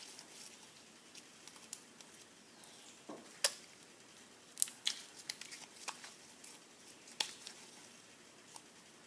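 Homemade glue-and-Tide slime being kneaded and stretched by hand, giving off scattered small sticky clicks and pops, several in quick succession about three to seven seconds in.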